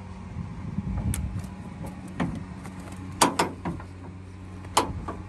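Hands working at the hood trim clips on the underside of a Dodge Sprinter's steel hood: a series of sharp clicks and knocks, the loudest about three seconds in, over a low steady hum.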